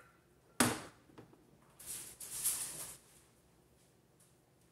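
A frying pan is set down on a glass-ceramic cooktop with one sharp knock about half a second in, followed a little later by about a second of soft hissing, scraping noise.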